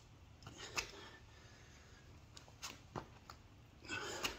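Soft taps and scuffs of a person doing burpees on an exercise mat: a few sharp knocks as hands and shoes meet the mat, and a short scuffing rush near the end as the feet jump in toward the hands.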